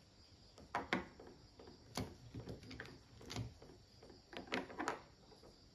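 Small plastic cosmetic items taken from a makeup pouch and set down on a wooden tabletop: faint light taps and clicks, singly and in small clusters.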